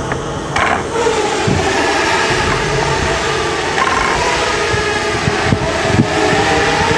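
Parrot Bebop 2 quadcopter drone propellers whirring, a steady whine whose pitch shifts a couple of times as the drone manoeuvres.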